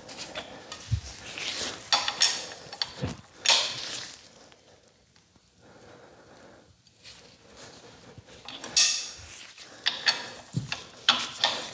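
Metal hand tools and engine parts clinking and scraping during an engine teardown, in scattered clusters with a quieter stretch in the middle.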